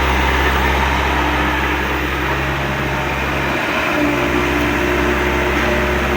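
A steady machine hum under a loud, even hiss, with a brief dip in the low hum a little past halfway.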